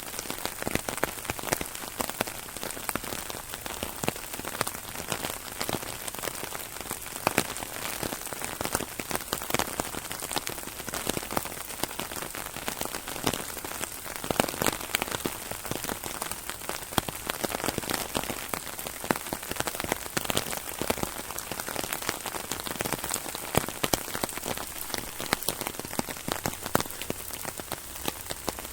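Rain falling on an umbrella: a steady dense hiss of rain with many sharp drop ticks scattered through it.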